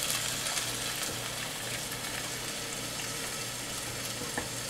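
Chicken breast strips sizzling in hot olive oil in a skillet, a steady hiss that eases slightly in the first second, with a faint click near the end.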